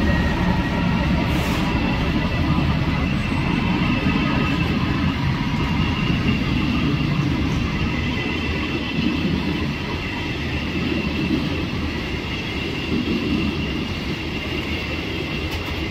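Freight wagons loaded with steel rolling steadily past on the rails behind a Class 66 diesel locomotive: a continuous rumble with a thin, steady high whine over it, easing slightly as the train draws away.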